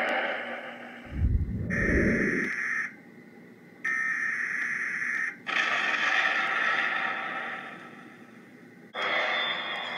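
Edited sci-fi sound effects: a hiss dies away, a short low rumble comes about a second in, then two electronic tone blasts of a second or so each, separated by a brief gap. A hiss swells and fades, and a steady high whine starts near the end.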